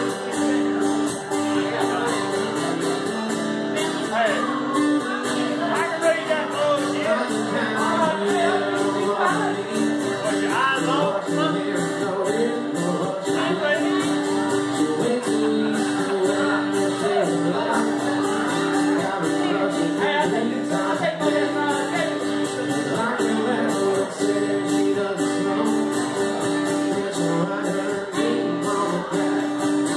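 Live acoustic performance: two acoustic guitars strumming chords under a man's singing voice.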